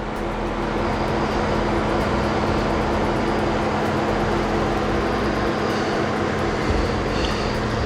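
Vehicle recovery winch running steadily under load, a constant motor drone as it hauls a stuck car through a snatch block.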